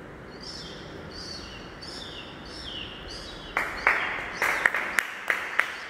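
A man mimicking kittens: a run of about half a dozen short, high, falling mews. About halfway through, scattered hand claps from the audience break in.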